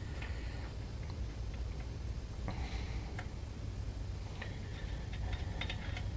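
Hand ratchet clicking in short, irregular runs as the bolts joining the rear driveshaft's flange to the differential's pinion flange are run in, with the clicks coming more thickly near the end. A steady low hum sits underneath.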